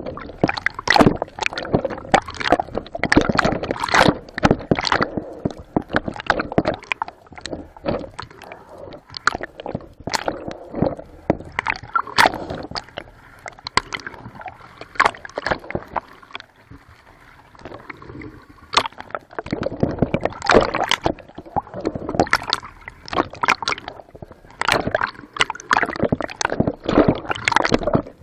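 Water sloshing, gurgling and splashing close to the microphone, in a busy, irregular stream of splashes that eases off for a few seconds in the middle.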